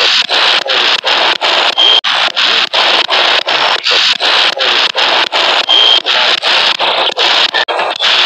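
Ghost box sweeping through radio stations: loud static chopped into short bursts about four times a second, with brief radio fragments that the investigator takes for a ghost saying "shot" and "police". A short steady beep comes twice.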